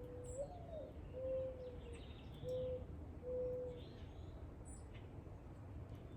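Dove cooing: a first coo that swoops up and falls back, then three lower, steady coos, with a few faint, brief chirps of small birds.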